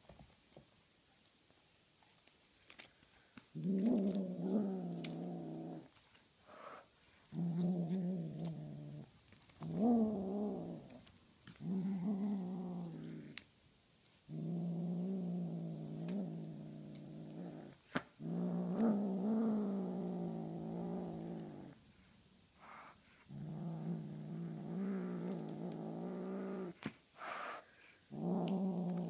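Tonkinese kitten growling over a feather toy held in its mouth: a run of long, low, wavering growls, each a couple of seconds long with short breaks, the possessive growl of a cat guarding caught prey. Nothing is heard for the first few seconds before the growling starts.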